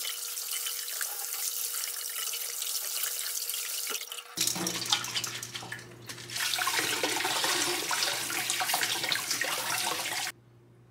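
Kitchen faucet spray running onto lettuce leaves in a stainless steel colander. About four seconds in the sound changes to uneven splashing as the wet leaves are shaken in the colander, then the tap runs steadily over cherry tomatoes held under it and cuts off suddenly near the end.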